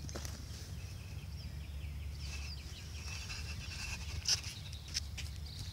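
Outdoor ambience: birds chirping over a steady low rumble, with a sharp knock about four seconds in.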